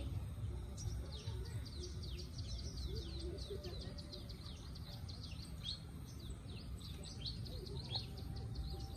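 Small birds chirping in many quick, short, falling notes that keep up without a break, over a low steady background rumble.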